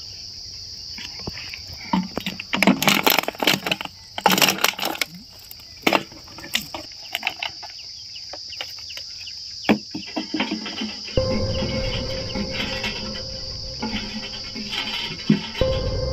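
Insects chirping steadily at a high pitch. A cluster of sharp short noises comes between about two and five seconds in. About eleven seconds in, a low rumble and a steady held tone come in.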